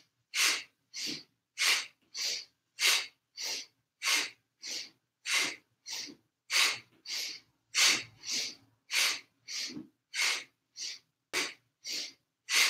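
Quick, forceful rhythmic breathing in and out, exhaling through the nose, in time with left-right seated twists of a Kundalini kriya. There are about three breaths every two seconds, alternating louder and softer as inhale and exhale trade off.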